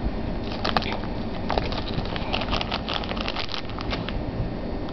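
Plastic snack packet crinkling as a hand handles it: a dense run of crackles from about half a second in to about four seconds in.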